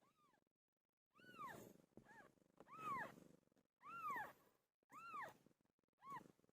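A cat meowing over and over: about seven short, high meows, each rising then falling in pitch, roughly one a second.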